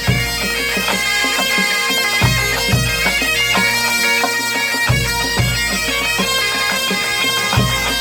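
A Breton bagad (pipe band) playing: bagpipes carry a melody over steady drones, with deep bass-drum beats falling in pairs about every two and a half seconds.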